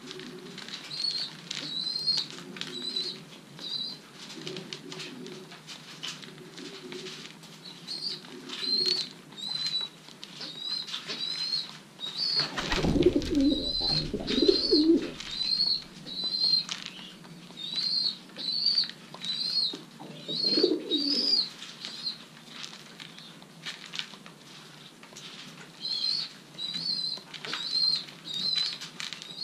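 Racing pigeons cooing, with a loud burst of wing flapping near the middle and a steady run of short high-pitched chirps, about two a second, coming and going throughout.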